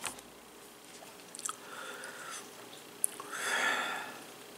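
Faint chewing of soft, soggy mixed vegetables (peas, carrots, squash), with a few small mouth clicks and a breathy hiss about three seconds in.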